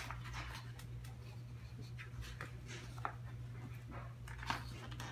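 Pages of a large hardcover picture book being turned by hand: a few short paper rustles and flicks, the loudest about four and a half seconds in, over a steady low hum.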